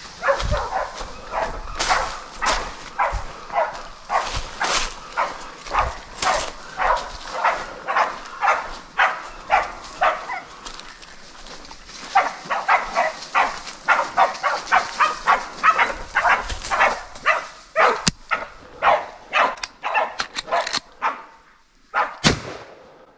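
Pig-hunting bail dogs barking steadily, about two barks a second, with a short pause about ten seconds in: bail-up barking that signals a wild boar held at bay.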